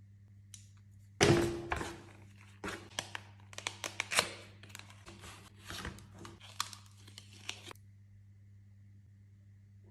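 Packaging being torn open and crinkled by hand: a loud rip about a second in, then a run of crinkles, crackles and light taps that stops about two seconds before the end.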